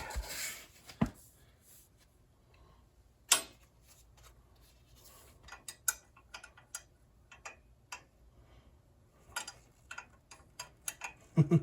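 Irregular metal clicks and clinks of hand tools as sockets and wrenches are tried on the tractor's exhaust bolts, with one louder knock about three seconds in and a run of quicker clicks in the second half.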